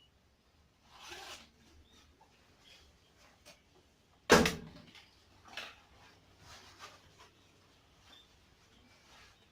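Fabric rustling of a textile mesh motorcycle jacket as it is being put on, with a single sharp knock about four seconds in, the loudest sound.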